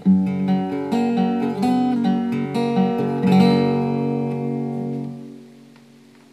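Marfill cutaway acoustic guitar played with picked notes and chords, about three notes a second. A last chord is struck a little past three seconds in and rings out, fading away by about five and a half seconds.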